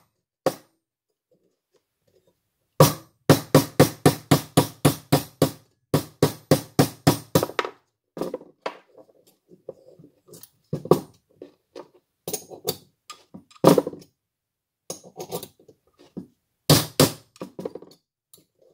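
Hammer blows on a disc cutter's punch, driving a disc cut from a spoon bowl down through the steel die. A quick run of about four strikes a second begins about three seconds in and stops briefly near the middle, then starts again, followed by slower, irregular strikes.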